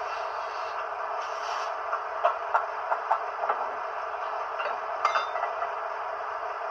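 H0 model train with a BR 118 diesel locomotive model: a steady mechanical hum. Light clicks and clatters come about two to three seconds in and again at about five seconds.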